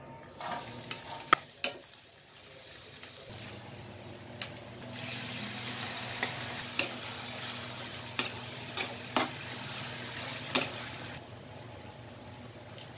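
Chopped onion and green chillies sizzling in hot oil in a non-stick frying pan, with a plastic spatula knocking and scraping against the plate and pan several times. The sizzle comes up about five seconds in and cuts off about two seconds before the end.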